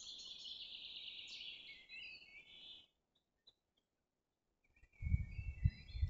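Faint songbirds chirping together, high and continuous, stopping about three seconds in. Near the end a few more bird calls come with low rumbling bumps.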